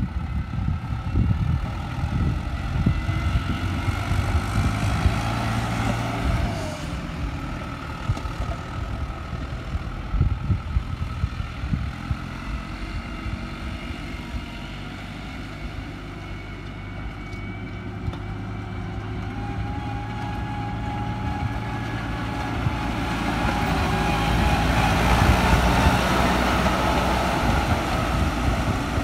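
Farm tractor's diesel engine running under load while it drags a rear leveling blade through dry soil, getting louder as the tractor drives close by in the last few seconds.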